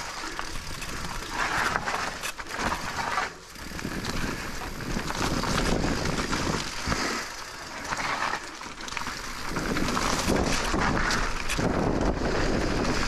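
Specialized Turbo Levo electric mountain bike riding down a rough trail: tyre noise and the bike's clicks and rattles over the ground, with wind rumbling on the microphone that gets heavier near the end.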